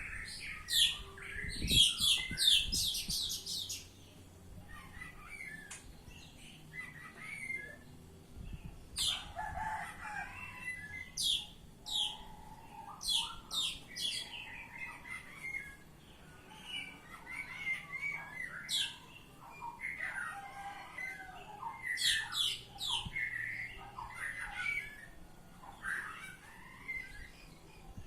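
Oriental magpie-robin (kacer) singing a varied song: a loud rapid run of high notes about two seconds in, then phrases of sharp downward-sweeping whistles and chattering notes broken by short pauses.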